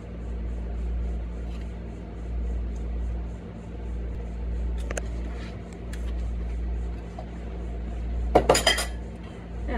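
Quiet kitchen handling over a steady low hum, with a few faint clicks, then a brief clatter of dishes and utensils about eight and a half seconds in.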